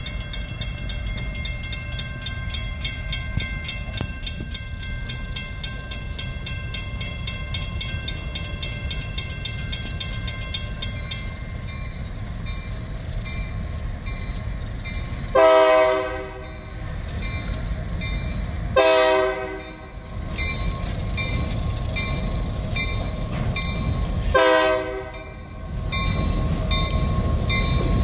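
Diesel freight locomotive approaching a grade crossing and sounding its horn: four blasts about a second long, the last still going at the end. Under them are the low rumble of the engine and wheels and the fast ringing of the crossing-signal bell, which is loudest in the first half.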